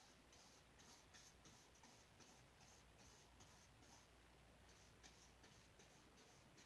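Faint, short strokes of a paintbrush dabbing and scraping oil paint on a small canvas, a couple or so a second and unevenly spaced.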